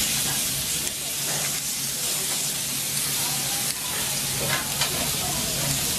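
Kobe beef steaks sizzling on a hot teppanyaki steel griddle: a steady, high hiss of fat and juices frying around the meat.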